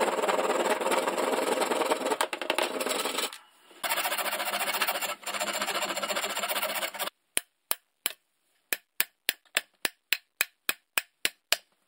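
A hand saw cutting through the end of a wooden axe handle, then a file rasping the wood flush with the axe head: steady scratchy strokes with a brief pause between the two. About seven seconds in, this gives way to about sixteen sharp taps that quicken toward the end, as a metal ring wedge is hammered into the end of the handle.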